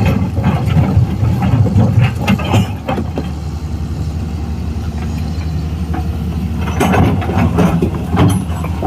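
Excavator's diesel engine running steadily, with bursts of sharper knocking and scraping noise over the first few seconds and again about seven seconds in.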